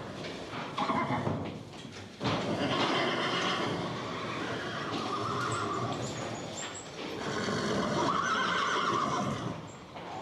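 A horse neighing: a short call about a second in, then two long whinnies, the first starting suddenly about two seconds in.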